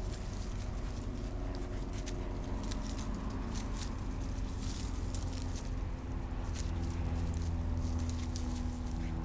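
Two small dogs play-wrestling on grass and dry leaves: scuffling paws and rustling with scattered short clicks, over a steady low hum.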